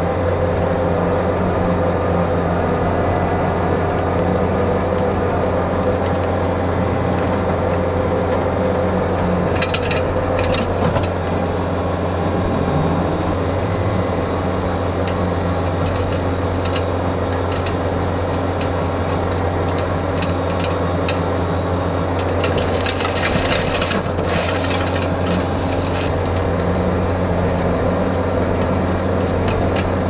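Diesel engine of a John Deere 333G compact track loader running steadily under load while its hydraulic Reist RotoRake power rake churns through soil and stones, with gritty rattling and scraping. Sharp clicks and rattles come about ten seconds in and again for a few seconds past twenty seconds.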